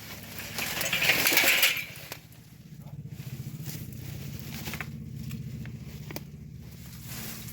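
The engine of a homemade bandsaw sawmill runs at a steady low idle with a fast, even pulse. Near the start comes a loud scraping crunch lasting about a second and a half.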